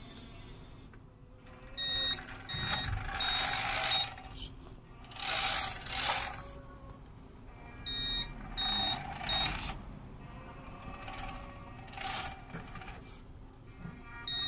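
RC Linde H40 D forklift model's reversing beeper, sounding in two short runs of quick beeps, about two seconds in and again about eight seconds in, as the forklift backs up. Between them come bursts of drive noise from the model as it manoeuvres.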